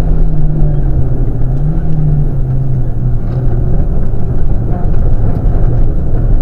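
Rally car engine at speed, heard from on board with heavy road and wind rush. The engine note lifts briefly about two seconds in, then drops steadily as the car slows for a tight bend.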